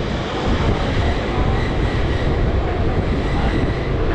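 Passenger train running, heard from an open coach window: a steady low rumble of wheels on the rails with a hiss of rushing noise over it.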